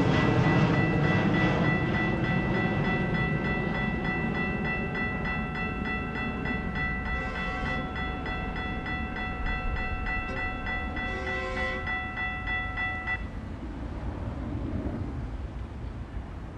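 Railroad crossing's electronic warning bells, a GS Type 2 and a Siemens High Tone E-Bell, ringing rapidly while the crossing is activated and the gates lower. The ringing cuts off suddenly about 13 seconds in, with the gates down.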